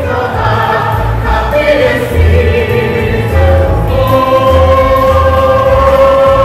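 A small choir of women singing together in harmony, with long held notes in the second half, over a low rhythmic bass accompaniment.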